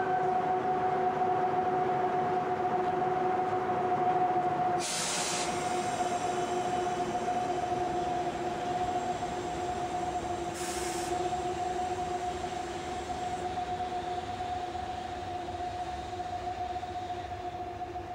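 EF63 banking locomotives running off along the track after being uncoupled, their noise slowly fading, over a steady two-note electric hum. Two short hisses of air sound about five and eleven seconds in.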